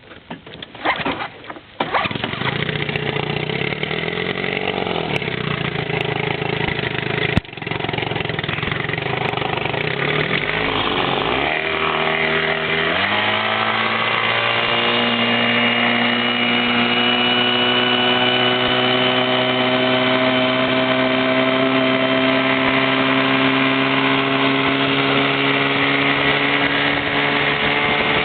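A small gasoline engine starts: a few brief cranking sounds, then it catches about two seconds in and runs unevenly, with one sharp knock partway through. Around twelve seconds in its pitch dips and then climbs, and it settles into a steady, fairly high-pitched run that creeps slightly higher.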